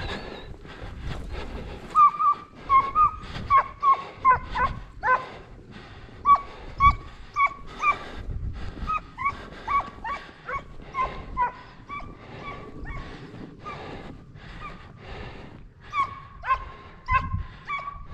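Hunting hounds giving tongue in a rapid series of short, high yelps, about two a second, starting about two seconds in and easing off briefly before picking up again near the end: hounds working a rabbit's scent trail.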